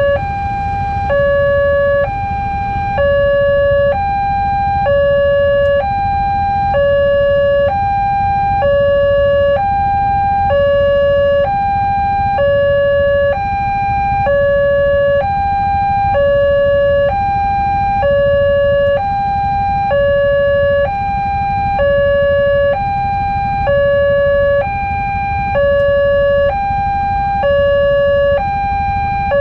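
Railway level-crossing warning alarm sounding a steady hi-lo pattern, alternating about once a second between a higher and a lower electronic tone, the signal that a train is coming and the crossing is closed. A low rumble of idling motorbike engines runs underneath.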